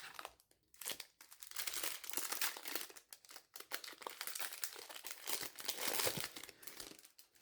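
Booster pack wrapper crinkling and tearing as a pack of trading cards is ripped open and handled, in an irregular run of crackles.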